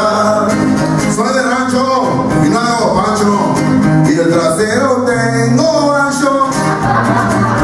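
A man singing a song to his own acoustic guitar, strumming steadily under the voice.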